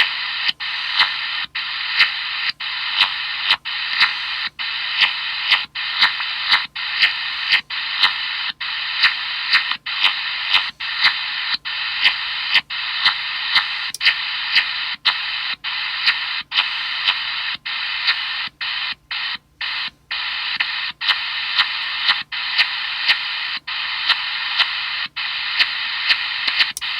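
Radio receiver's speaker on upper sideband playing an odd pulsed radio noise: a steady hiss broken by regular clicks and brief dropouts about every half second, with a few longer dropouts about 19 to 20 seconds in.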